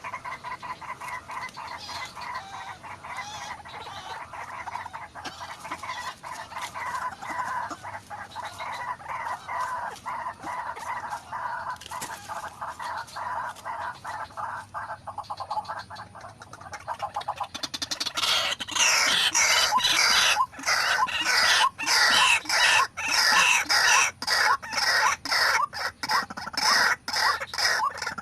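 White-breasted waterhens calling: a fast, steady run of repeated croaking notes that turns much louder and harsher about eighteen seconds in.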